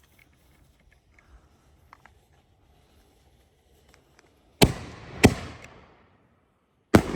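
5-inch canister firework shells going off: a sharp loud bang about halfway through, a second one just after, and a noisy tail fading over about a second, then another bang near the end.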